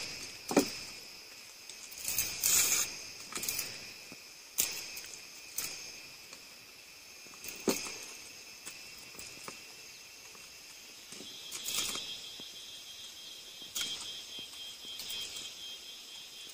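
Insects chirping steadily in high thin tones, with another, lower one joining about eleven seconds in. Over them come scattered sharp clicks, taps and scrapes as bamboo skewers are handled and grilled fish is pulled off them into a ceramic bowl.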